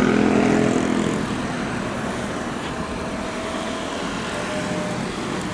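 Jet engine noise from a Boeing 737-800's CFM56 turbofans as the airliner flies past: a steady rumble that eases off slightly after about a second.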